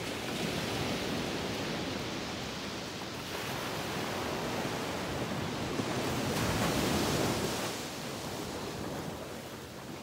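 Ocean surf breaking and washing up a sand beach, a steady rush that swells to its loudest about six to seven seconds in, then eases off.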